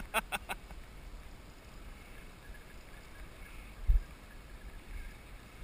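Fishing reel clicking rapidly, about six clicks a second, for the first half second as a just-hooked fish is played, then a low steady hiss of wind and water with one dull thump about four seconds in.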